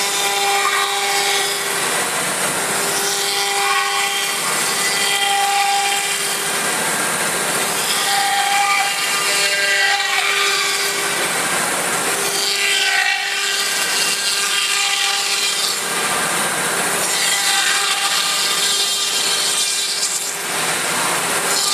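HSD 9 kW spindle of a CNC router running at high speed with the cutter machining wood. A steady high whine runs under a cutting noise that swells and eases every few seconds.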